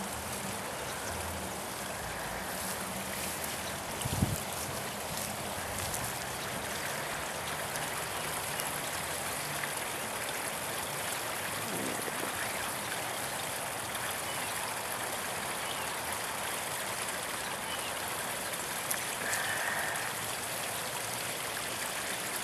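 Steady trickle and splash of running water from a backyard koi pond, with a single dull thump about four seconds in.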